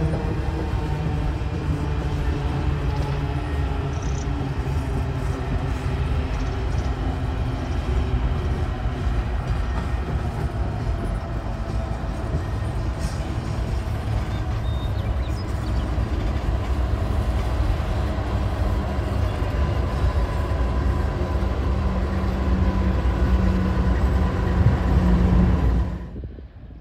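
Canadian Pacific freight train of open-top coal hopper cars rolling past, a steady rumble of steel wheels on the rails. A diesel locomotive placed within the train passes with its engine running, and the sound builds in the last few seconds before cutting off abruptly near the end.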